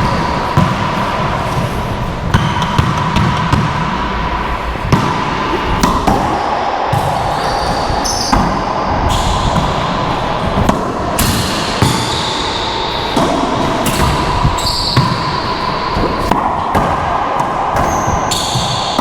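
Racquetball rally: the ball cracking off the walls and racquets at irregular intervals, with sneakers squeaking briefly on the court floor between hits.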